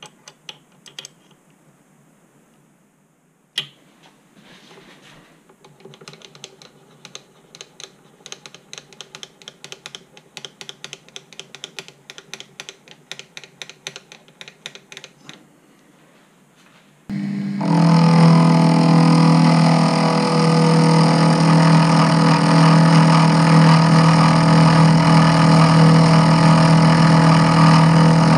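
Rapid light clicking, about five a second, as the Proxxon FF 230 mini mill's table handwheel is cranked to sweep the dial test indicator along the vice jaw. About 17 seconds in, a much louder steady drone with a low hum starts and holds.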